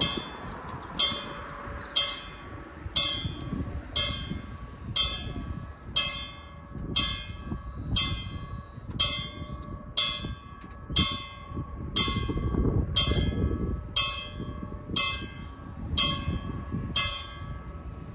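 Level-crossing warning bell striking about once a second, signalling an approaching light-rail train; it falls silent near the end.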